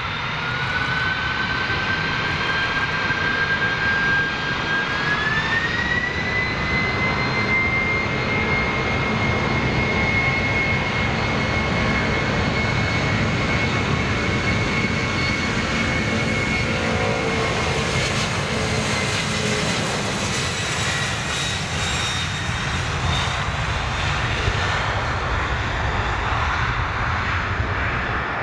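A KLM Boeing 747-400's four turbofan engines spooling up for the takeoff roll. The whine climbs in steps over the first several seconds, then holds steady over a deep, continuous rumble as the jet accelerates past.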